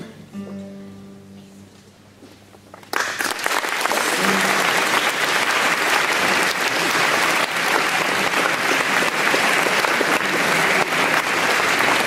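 Classical guitar trio's last notes ringing out and fading away, then audience applause breaking out about three seconds in and carrying on loudly.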